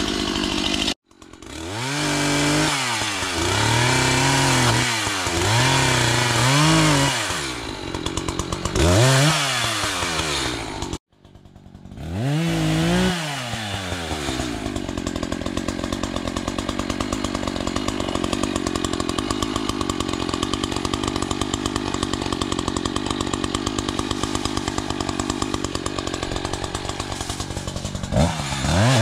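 Gasoline chainsaw revving up and down several times, then held at full throttle for about fourteen seconds as it cuts low brush and small trees, dropping back near the end. The sound breaks off abruptly twice early on.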